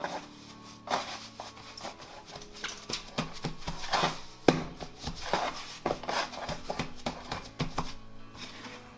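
Bread dough being handled on a work surface: irregular knocks, taps and rubbing, with one sharper knock about halfway through. Soft background music runs underneath.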